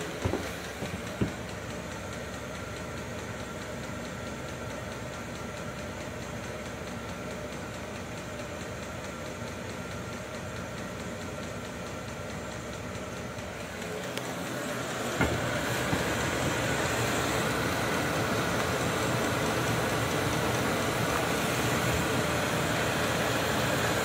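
Diesel air heater running with a steady whir from its blower and burner. About fifteen seconds in there is a click, and the running sound grows louder and fuller and stays that way.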